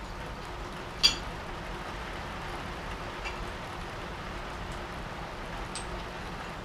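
Sharp metallic clink about a second in, with a couple of fainter clicks later, as tools and a cutter are handled at the tool post of an Edgwick lathe. A steady low hum runs underneath.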